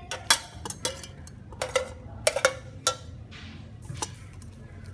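Metal ladle clinking against stainless steel cooking pots while scooping boiled shrimp out of the broth and dropping them into another pot: a series of irregular sharp metallic clinks with a short ring, the loudest near the start.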